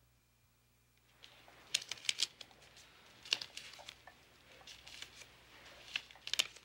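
Near silence for about the first second, then faint scattered clicks and paper rustling from small objects being handled at a desk, with a few sharper ticks.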